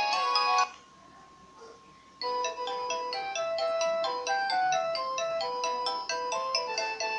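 Nokia 2600 mobile phone ringtones. One polyphonic ringtone ends shortly after the start, and after a gap of about a second and a half another begins: a quick, bright melody of single notes.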